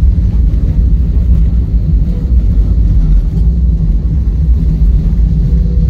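Loud, steady low rumble of an airliner's cabin as the plane moves along the ground on the runway.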